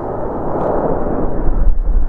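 Boeing 767 airliner's jet engines rumbling on landing approach, the deep rumble growing louder as it closes in.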